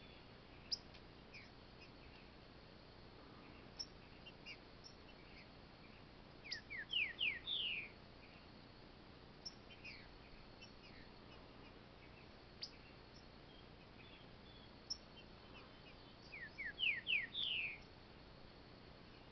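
Green-winged saltator (trinca-ferro) singing: two short phrases of four or five quick falling whistles, about six and sixteen seconds in, with scattered single chips and short notes between them.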